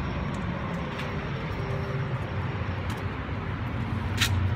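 A steady low mechanical hum with an even noise haze, with a few sharp clicks near the end.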